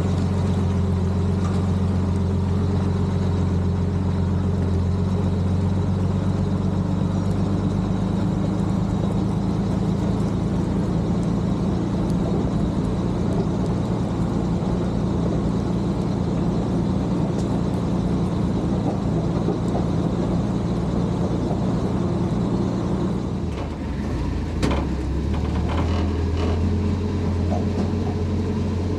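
Dodge M37 truck's flathead straight-six engine running at a steady low speed as the truck crawls along a muddy trail. About 23 seconds in the engine note drops lower, with a couple of sharp knocks.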